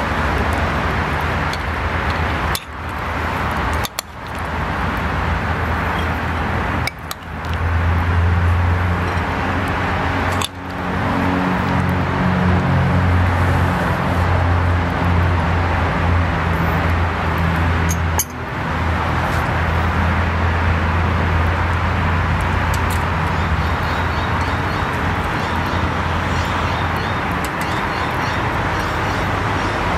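Steady outdoor background noise with a low rumble, like road traffic, broken by a few short gaps.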